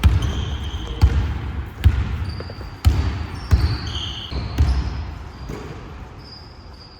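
A basketball bouncing on a gym floor in a series of deep thuds, about one a second, fading out after about five seconds, with short high sneaker squeaks on the court.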